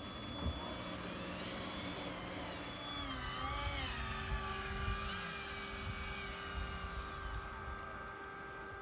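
Model speedboat's motor whining, its pitch sweeping up and down several times, then settling into a steadier hum. A single thump about half a second in.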